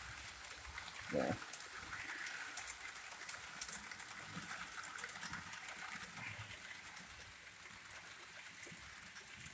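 Model trains running on the layout track: a faint, steady whir and rolling hiss from their motors and wheels, with a few light clicks.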